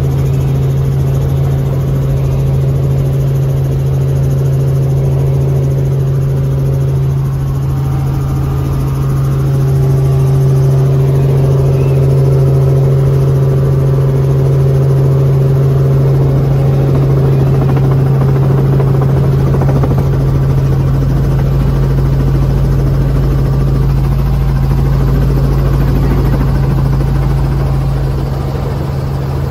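Robinson R44 helicopter's engine and rotors running with a loud, steady drone, heard from inside the cabin as it comes in low and sets down at the heliport. A deeper rumble strengthens near the end.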